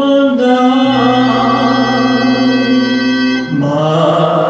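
Vinyl record playing a song on a turntable: sung music with backing instruments, with one long held note through the middle before the melody moves on again.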